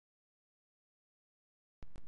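Digital silence, then a faint steady hiss starting near the end.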